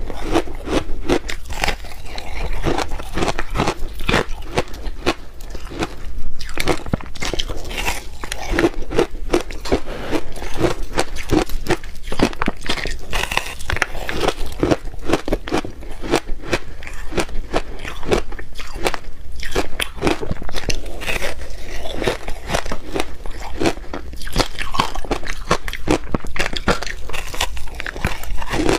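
Close-miked teeth biting and crunching through a block of frozen ice, a dense, irregular run of sharp cracks and crunches with no pause.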